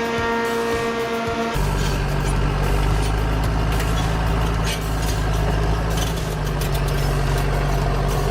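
A steady whistle-like tone for about the first second and a half, then it cuts to the heavy, steady running of a large diesel machine engine.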